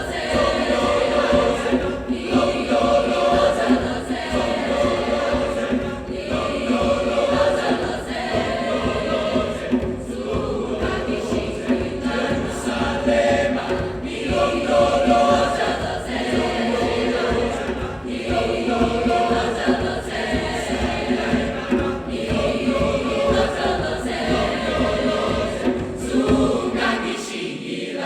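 Choir singing sustained, held chords, the song coming to its end and dying away at the very close.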